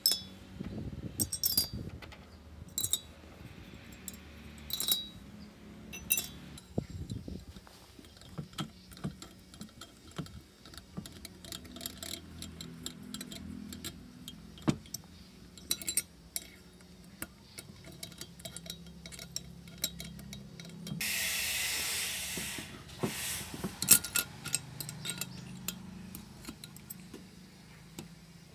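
Light metallic clicks and clinks of a hex key and steel bolts against a chainsaw's aluminium cylinder and crankcase as the cylinder is fitted and bolted down, scattered and irregular. A hiss lasting about two seconds comes a little past the middle.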